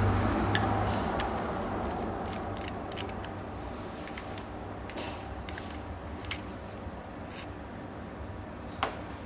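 Zippo lighter being handled: soft scraping at first, then scattered small, sharp metallic clicks from the lid and striker wheel. This lighter is out of flint, so the wheel strikes without sparking.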